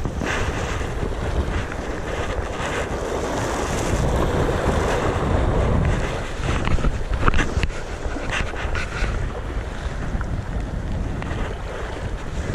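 Wind buffeting the microphone over waves washing against sea rocks, with a scatter of short crackles a little past the middle.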